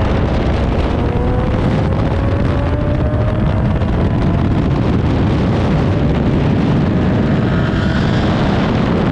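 Two sports cars racing side by side at speed, with an engine note climbing slowly in pitch under hard acceleration over the first few seconds, mixed into heavy wind noise on the microphone.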